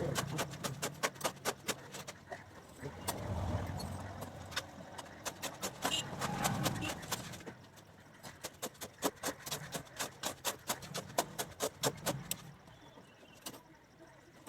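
Quick sharp clicks and taps, several a second, of rebar and binding wire being handled and tied by hand, stopping near the end, with a faint murmur of voices.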